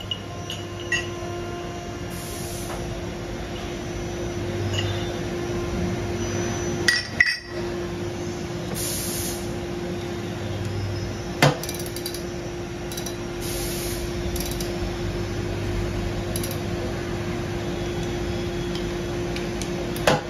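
Steel crank-arm tubes and vise parts clinking and knocking against the mill's steel fixtures as the tubes are handled in and out of the vises. There are a few sharp metal clanks, the loudest about seven and eleven seconds in, over a steady machine hum.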